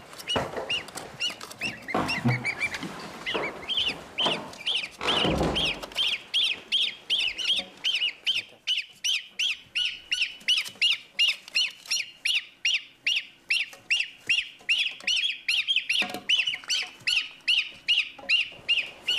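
A brood of goslings peeping loudly and without a break, short high calls at about three to four a second. They are calling for their absent imprinted 'mother'. In the first few seconds there is some rustling and a dull thump.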